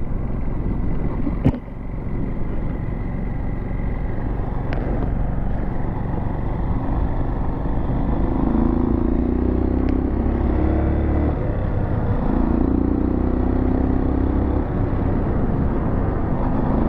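Dirt bike engine running as the motorcycle pulls off and rides along a road, with wind on the microphone. There is a single sharp click about a second and a half in, and the engine gets louder for two stretches in the middle.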